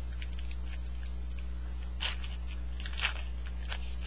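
Baseball card pack wrapper crinkling and tearing as it is opened by hand, light crackles with two louder rustles about two and three seconds in, over a steady low electrical hum.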